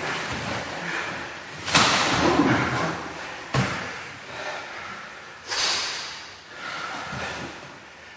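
Two men grappling on a mat: bodies thudding and scuffling, with loud, forceful breaths at intervals and a sharp knock about three and a half seconds in.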